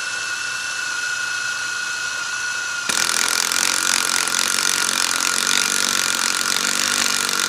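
Power drill spinning a 9/16 inch step drill bit into steel plate, its motor whining at a steady pitch. About three seconds in it gets louder and harsher as the bit cuts harder into the metal.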